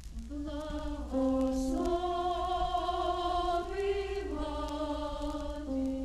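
Choir singing in sustained chords that move to new pitches step by step, about once a second, over a low steady hum.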